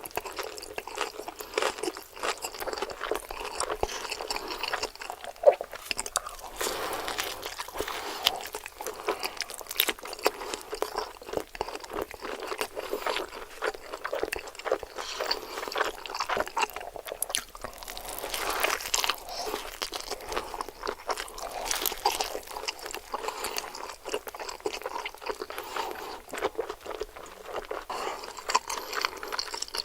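Close-miked eating of burger food: crisp crunching bites and wet chewing, a steady run of crackles with one loud crunch about five seconds in.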